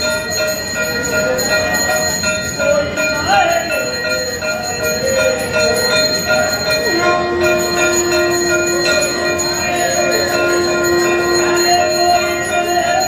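Temple bells ringing continuously during a Hindu aarti, with a long steady note held for about six seconds in the second half.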